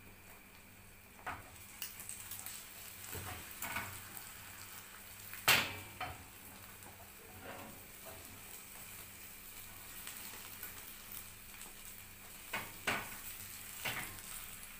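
Egg frying with a faint sizzle in a nonstick frying pan while a spatula stirs, scrapes and knocks against the pan. The loudest knock comes about five and a half seconds in, and a few more come near the end.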